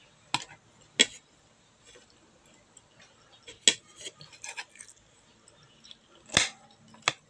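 A spoon clinking against a dish as someone eats: several separate sharp clinks, the loudest about six seconds in.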